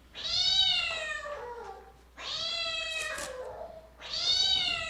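Domestic cat meowing: three long, drawn-out meows, each over a second long and falling in pitch at the end.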